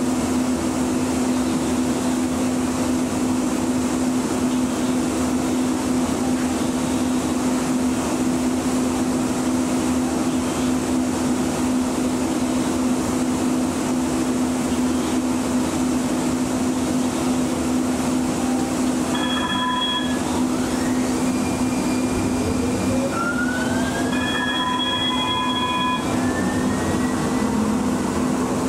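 Muni light rail vehicle's steady low hum and running noise while standing at a signal. About two-thirds of the way in a short multi-tone beep sounds, then the traction motors' whine rises in pitch as the train accelerates away, with a second, longer beep during the climb.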